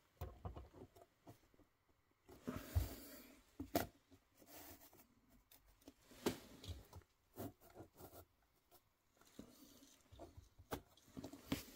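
Faint handling noises: scattered small clicks, taps and rustles as light diorama pieces are pressed and fitted together by hand.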